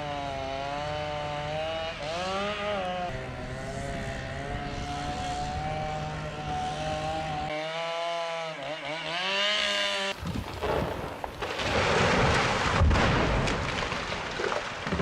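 Chainsaw running, its pitch rising and falling as it works through the wood. About ten seconds in, the engine sound gives way abruptly to a loud, noisy, deep rumble.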